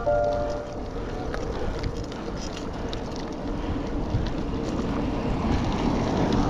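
Wind buffeting the action-camera microphone over the rumble of a gravel bike's tyres on rough, stony ground.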